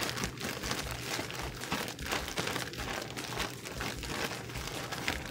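Plastic gallon Ziploc bag crinkling as it is shaken and turned with fish and a flour coating inside, an irregular run of rustles and crackles.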